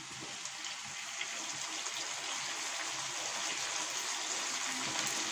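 Melted butter and chopped garlic sizzling with chicken pieces in a frying pan, a steady hiss that slowly grows a little louder.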